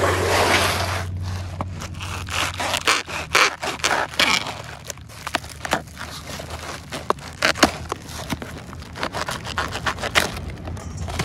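White foam packaging wrap being sliced with a knife and pulled off a plastic toy trolley: irregular scraping, crackling and rustling with many short sharp scratches.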